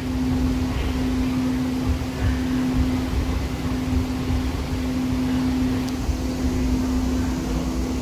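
Cabin sound of a Siemens S200 light rail car in motion: a steady hum over a low rumble.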